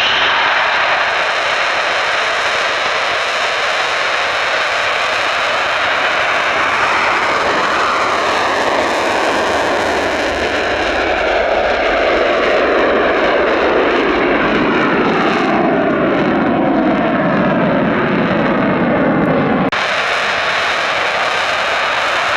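Eurofighter Typhoon jet engines running loud, the pitch sliding steadily downward as the jet passes. The sound changes abruptly near the end, dropping its deeper part and leaving steady jet noise.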